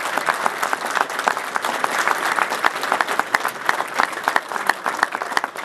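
A small crowd of people lined along a walkway, clapping and applauding steadily with many overlapping hand claps.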